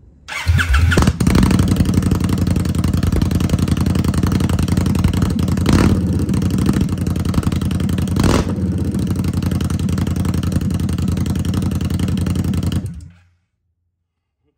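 Indian Scout Rogue's 1133 cc V-twin running straight-piped, with no silencers on the headers. It starts up, idles extremely loud with two short throttle blips about six and eight seconds in, and then cuts off suddenly.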